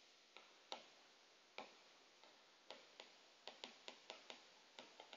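Faint, irregular taps and clicks of a stylus tip on a tablet screen during handwriting, against near silence.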